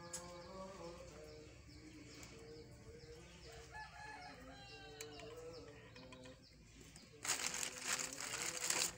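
Electric hair clipper running while a head is shaved, with birds calling in the background. A louder burst of noise comes about seven seconds in and lasts nearly two seconds.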